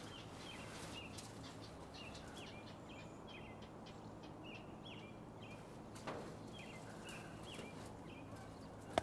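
A steady series of short, high bird calls, two or three a second, coming from a nest; the birder takes them for begging calls of a heron fledgling. A soft knock about six seconds in.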